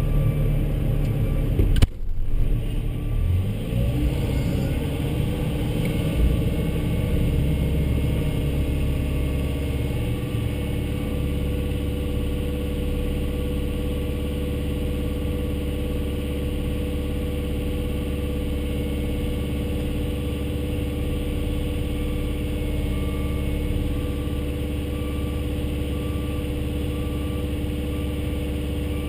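Volvo excavator's diesel engine running steadily with a low, even hum. There is a brief sharp break about two seconds in.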